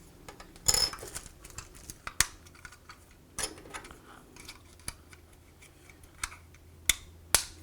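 Handling clicks of a battery being fitted into a small plastic remote control: a few sharp plastic clicks and brief rattles as the battery cover and battery are worked into place.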